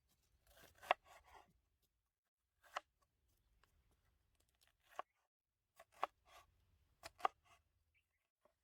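A few faint, sharp clicks spaced irregularly, with soft rustling and scraping between them, like small objects being handled.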